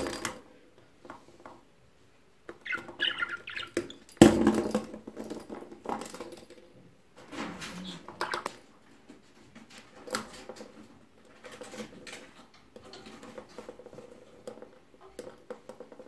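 Budgie pushing a small plastic ball around its cage floor: scattered knocks and rattles as the ball rolls and hits things, sharpest right at the start and loudest about four seconds in, with short bursts of budgie chatter between.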